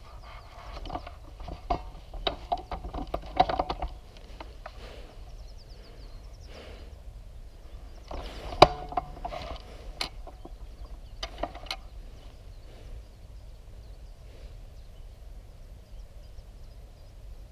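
Scattered clicks, snaps and rustling, busiest in the first few seconds, with one sharp loud click about eight and a half seconds in and a few more after it.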